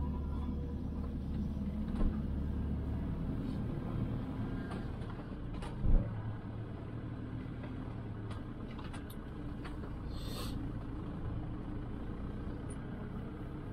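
Motorhome on the move: a steady low rumble, with a knock about two seconds in, a louder thump about six seconds in and a short hiss near the ten-second mark.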